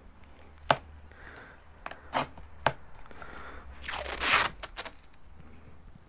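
Masking tape being pulled off the roll, with one loud rip about four seconds in, after a few sharp clicks and crinkles of tape and cardboard as it is handled and pressed down.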